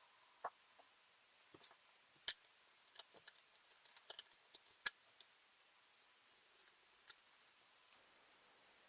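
Scattered small clicks and taps from a ThinkPad T420 laptop's plastic and metal parts being handled during disassembly. There are two sharper knocks, a quick run of light clicks between them, and a couple more clicks near the end.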